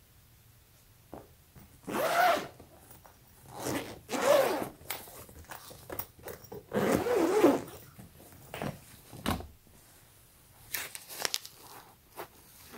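Zipper on a clear vinyl bedding-set storage bag being unzipped in three long pulls. Lighter rustles and clicks follow near the end as the bag is handled.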